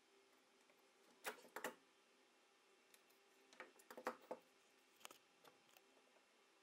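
Faint clicks and light knocks of metal gun parts and a screwdriver being handled as an old shotgun's trigger guard is unscrewed and lifted out. There are two knocks about a second in, a cluster around four seconds, and one more near five seconds.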